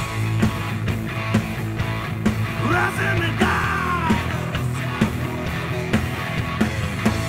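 Live rock band of electric guitar, bass guitar and drums playing loud, with a steady drum beat under a sustained bass line. A yelled, sung vocal comes in about three seconds in and lasts about a second and a half.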